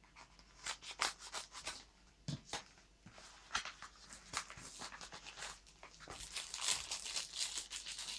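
Scissors cutting open a padded paper mailer, then the paper envelope rustling and a small plastic bag crinkling as the contents are pulled out and handled: irregular crackles and rustles that grow busier in the second half.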